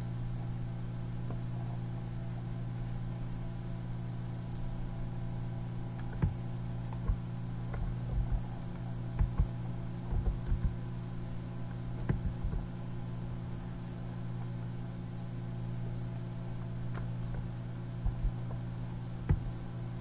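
Computer mouse clicks and scroll-wheel ticks, scattered and irregular, most of them in the middle of the stretch and a few more near the end, over a steady low electrical hum.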